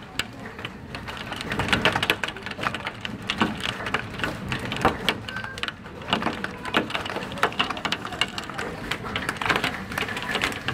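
Large hailstones pelting down in a heavy hailstorm: a dense, irregular clatter of hard impacts over a steady hiss of falling ice and rain.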